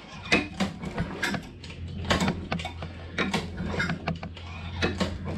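Lawnmower pull-starter cord yanked several times, the recoil mechanism clicking and rattling as the engine is turned over without starting, over a steady low hum.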